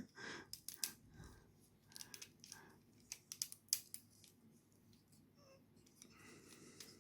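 Faint, scattered clicks and taps of a hard plastic action figure being handled and turned in the hands.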